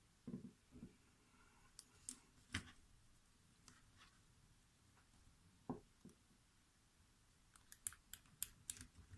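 Faint metallic clicks of a lock pick and tension wrench working the pins of a heavily sprung challenge lock: scattered single clicks, then a quick run of clicks near the end.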